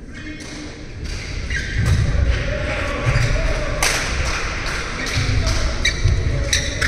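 Badminton rally: sharp racket strikes on the shuttlecock, heavy footsteps thudding on the court floor and short shoe squeaks, with one especially hard hit about four seconds in.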